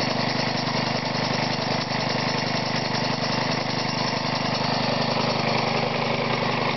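Small single-cylinder Briggs & Stratton lawnmower engine running steadily under load. It belt-drives a homemade compressor, built from another Briggs & Stratton engine, that is pumping air into the tank.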